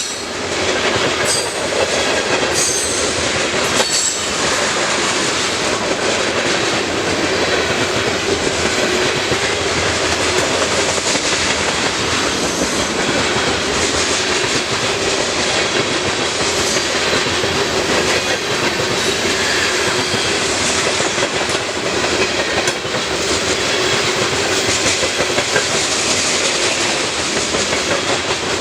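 Cars of a CN grain train rolling past at a steady pace: a continuous loud wheel-on-rail rumble with clicks as the wheels cross rail joints, and a faint steady squeal.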